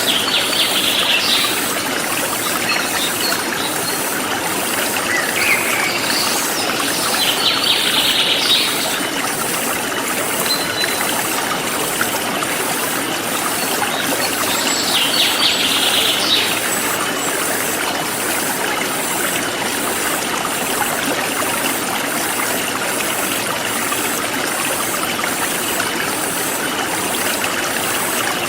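A forest stream flowing steadily, with birds chirping in short bursts a few times: once near the start, twice around a quarter of the way in, and once about halfway. A faint, even, high-pitched pulsing runs underneath.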